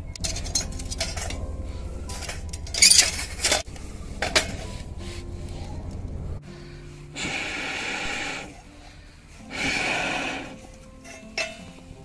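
Stainless steel cutlery and tongs clinking and clattering against a steel wood-burning stove, with a few sharp metallic clinks in the first half. Later come two longer scraping noises of about a second each. Background music plays throughout.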